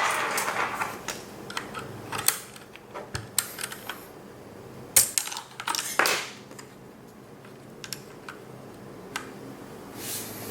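Typing on a Keychron K2 mechanical keyboard with red linear switches: irregular key presses, dense for the first six seconds or so, then only a few scattered keystrokes.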